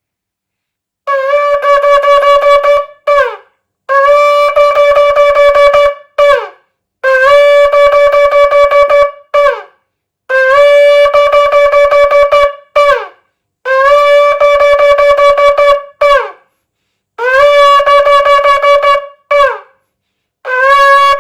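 Shofar blown in a run of long, wavering blasts, each ending in a short note that slides down in pitch; the pattern repeats about six times, with a brief pause between blasts.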